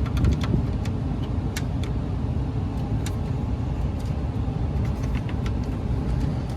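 Payne gas furnace running under test: a steady low rumble, with scattered light clicks and ticks over it.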